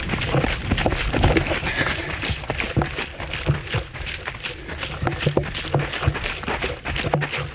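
Running footsteps thudding and crunching in quick succession on a dry, dusty dirt trail.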